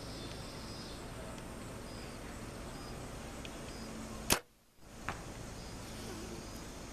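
A bow shot: the bowstring snaps sharply on release about four seconds in, and the sound drops out briefly after it. Under a second later there is a faint tick as the arrow hits the foam target about 66 yards off.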